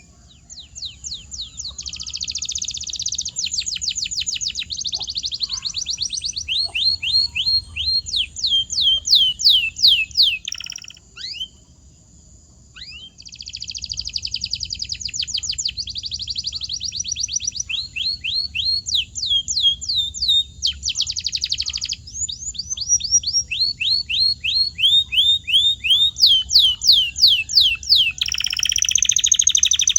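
Canary singing: phrases of quickly repeated high notes, each sweeping down in pitch, running into trills, with a brief pause about eleven seconds in.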